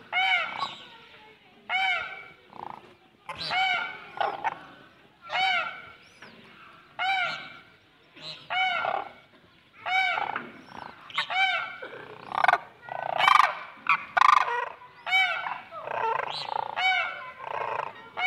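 Caged partridges calling, loud ringing multi-note calls repeated about every one and a half to two seconds, with more birds joining and overlapping from about twelve seconds in.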